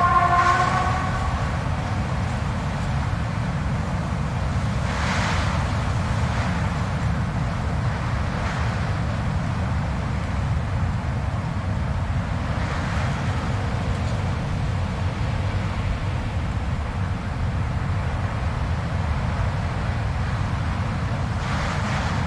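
Blizzard wind: a steady low rumble, with gusts that swell and hiss every few seconds and a short whistling howl right at the start.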